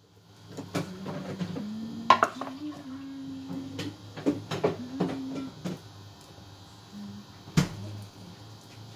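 Kitchen clatter: scattered knocks and clicks of utensils and cookware, the sharpest about two seconds in and near the end, over a low hum.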